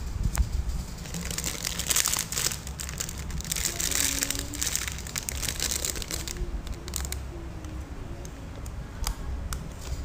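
Plastic packaging bags crinkling irregularly as a hand handles and shifts plastic-wrapped squishy toys, heaviest in the middle.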